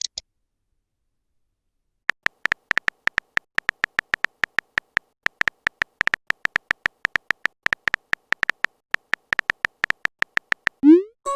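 Phone keyboard typing sound effect: a quick, uneven run of short tapping clicks, starting about two seconds in, followed near the end by a short rising swoop like a message-sent sound.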